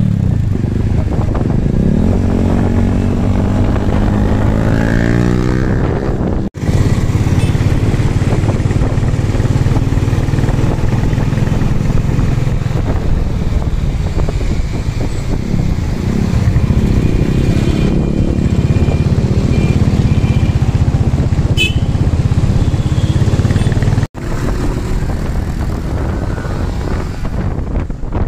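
Motorcycle engine running and revving, its pitch rising and falling. The sound breaks off abruptly twice, and after the second break it is quieter, with wind on the microphone.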